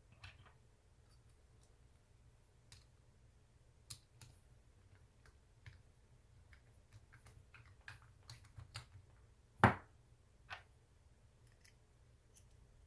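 Scattered light metallic clicks and ticks of small screws and steel flat-bar parts being handled and screwed together, with one louder knock about ten seconds in.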